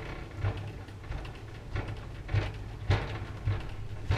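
Footsteps of several people walking on a wooden corridor floor, uneven knocks about two a second, over a steady low hum.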